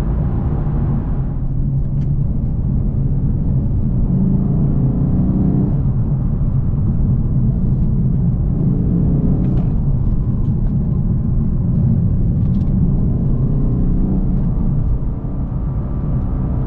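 Lexus RC F Track Edition's 5.0-litre V8 heard from inside the cabin on the move, its note rising in pitch a few times as the car pulls, then easing off near the end.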